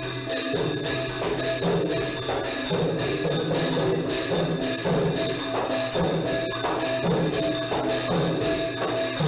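Background music with a steady, quick percussion beat and a short note repeated over and over.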